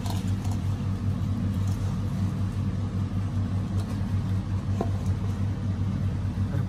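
Steady low hum throughout, with a couple of faint soft ticks as hands pull dough from a steel bowl.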